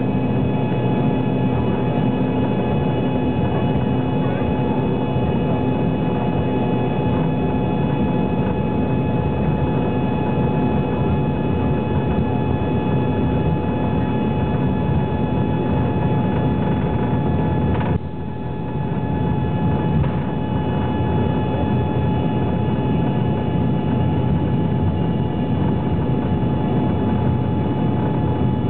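Jet airliner's engines running at taxi power, heard from inside the cabin: a steady hum under a constant high whine. The sound dips briefly about two thirds of the way through, then returns to the same level.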